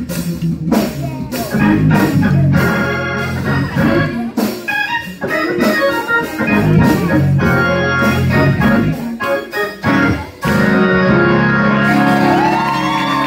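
Live church music: a Hammond-style organ holds chords while a drum kit strikes hard and often along with it.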